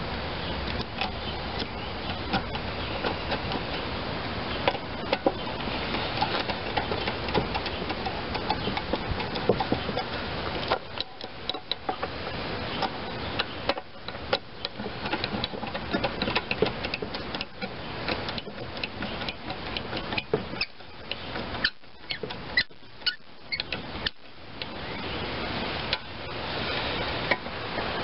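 Screwdriver turning the screws that hold a small-engine carburetor to its metal fuel tank: irregular small metal clicks and ticks over a background hiss that fades about halfway through.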